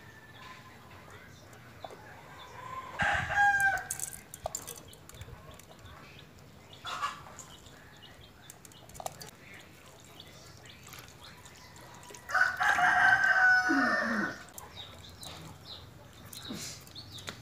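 Rooster crowing twice: a short crow about three seconds in and a longer one of about two seconds near twelve seconds in.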